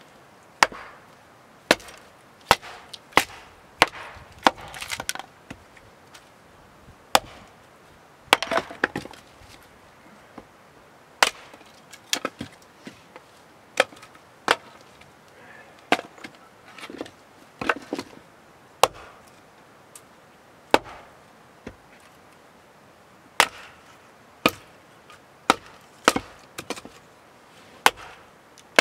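Firewood being chopped: sharp, irregular wooden strikes about once a second, some followed by a brief splintering crackle.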